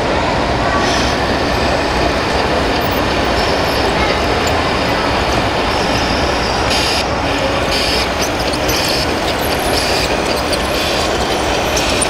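1/14-scale RC construction machines working: a steady mechanical running noise, with a higher whine that comes and goes several times.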